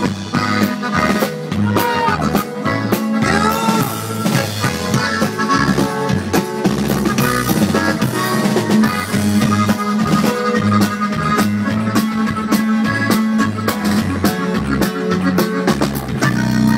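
Live band playing an instrumental break between sung verses: a lead melody over a steady, repeating bass line and drums.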